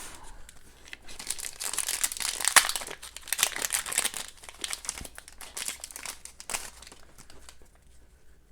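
Wrapper of a hockey card pack being torn open and crinkled by hand, a run of irregular crackling from about a second in, dying away near the end.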